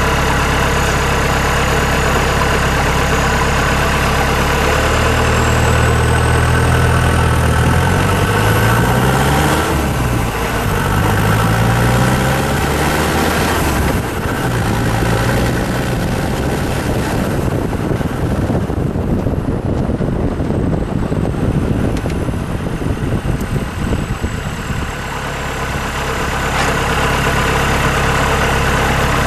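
Mitsubishi Pajero's 4M40T 2.8-litre four-cylinder turbo-diesel running through a straight-out dump pipe with no muffler: idling, then held at raised revs, then revved up and down several times. A faint high turbo whistle rises and falls with the revs. The engine goes rough and uneven for a stretch before settling back to a steady idle near the end.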